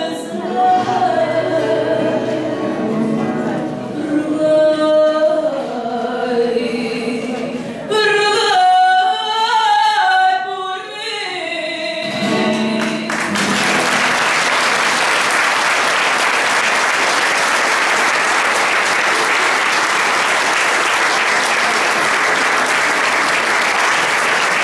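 A woman singing a slow song with Portuguese guitar and classical guitar accompaniment, with long held notes. The song ends about thirteen seconds in, and steady applause from the audience follows to the end.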